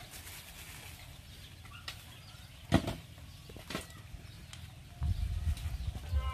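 Steel knife blanks knocking together as they are handled at a workbench: one sharp knock about three seconds in and a lighter one a second later. A low rumble comes in near the end.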